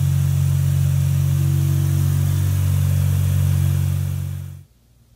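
Car engine running steadily, with a strong low drone and a hiss, cutting off abruptly about four and a half seconds in.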